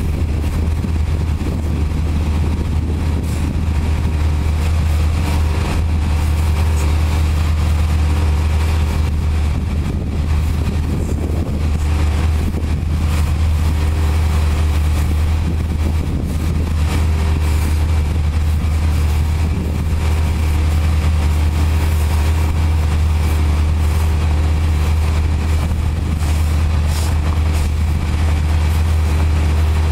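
Steady low engine hum with the hiss of a high-pressure water wand spraying a semi-truck's wheels.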